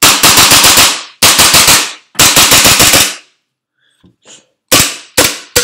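Tokyo Marui Desert Warrior 4.3 gas blowback airsoft pistol firing with no BBs loaded: three quick strings of sharp cracks, each about a second long, then three single shots near the end as its gas runs out. The report is dry and plasticky rather than a metallic click.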